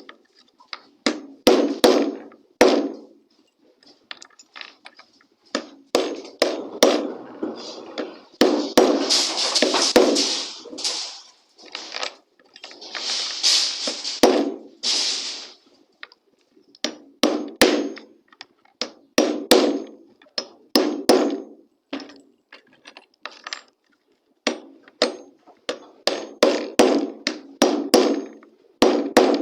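Hammer driving nails into wood: runs of sharp, quick blows, several to a run, repeated throughout. About a third of the way in, and again near the middle, the hammering gives way to a scraping noise lasting two to three seconds each time.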